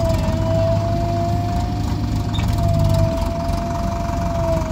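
JCB backhoe loader's diesel engine running as its bucket digs into a heap of soil, with a steady high whine over the engine rumble; the rumble eases slightly about three seconds in.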